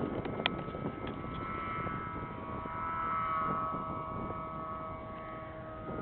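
Distant snowmobile engines whining across the slope, a steady drone whose pitch and loudness swell about three seconds in and ease off again. A single sharp click about half a second in.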